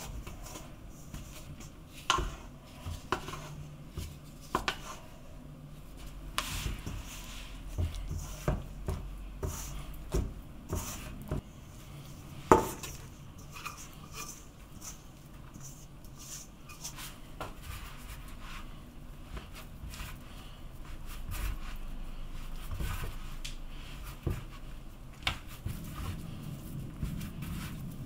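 Hand-mixing shaggy flour-and-water pizza dough in a stainless steel bowl, with scattered knocks and clinks of the metal bowl, the loudest about halfway through. The dough is then tipped and scraped out of the bowl onto a wooden cutting board.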